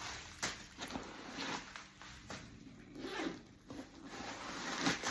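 Zipper on a genuine-leather handbag being pulled open, with rustling and handling of the bag in between, several short sharp rasps.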